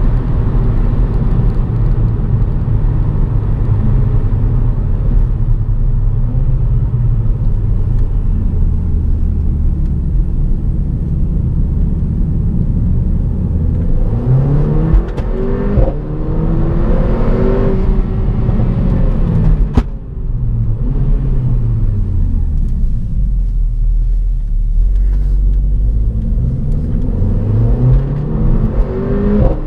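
Mercedes-AMG A45's turbocharged 2.0-litre four-cylinder heard from inside the cabin, running at a steady cruise at first. About halfway it accelerates hard, the revs climbing through the gears, with a sharp crack at about twenty seconds; the revs then fall as it slows and rise again near the end.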